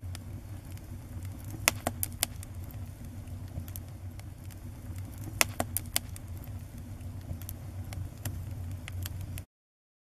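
Wood fire crackling: a steady low roar with scattered sharp pops, some in quick clusters, cutting off abruptly near the end.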